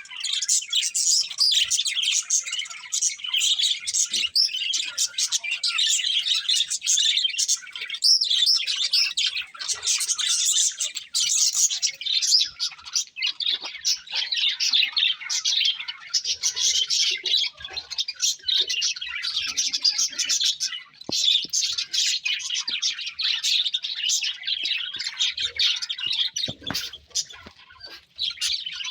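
Budgies chirping and chattering without a break: a dense stream of quick, high chirps.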